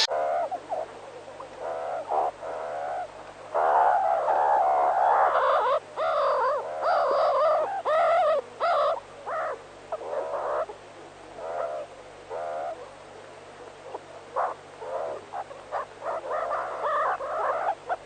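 A group of meerkats calling: many short, wavering calls overlapping one another, densest in the first half and thinning out into separate chirps later.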